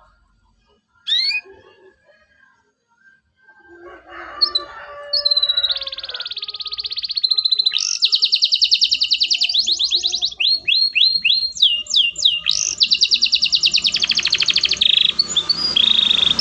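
Canary singing: one short chirp about a second in, then from about four seconds a loud run of fast rolling trills and quick downward-slurred whistle notes.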